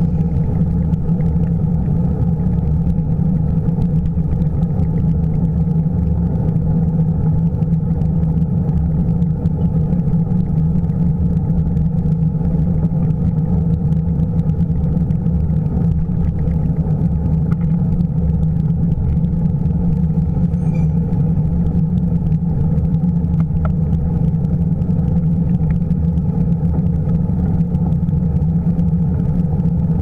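Steady low rumble of wind and road vibration on a bicycle-mounted action camera as the bike rolls along.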